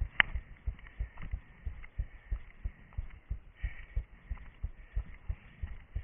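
Footsteps of a runner moving over forest ground, heard through a head-mounted camera as steady low thuds about three a second. A single sharp click comes just after the start.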